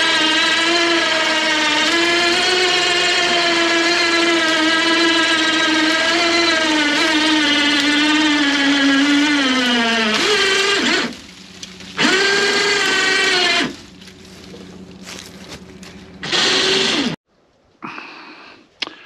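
Chainsaw running hard while cutting through a tree trunk, its pitch sagging under load about nine seconds in before it stops. It is then revved again in two shorter bursts.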